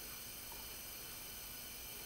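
Faint steady hiss of room tone, with no distinct handling sound.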